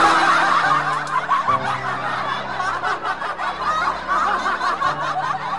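Loud laughter that breaks in suddenly and goes on without a pause, over a soft karaoke backing track with long held chords.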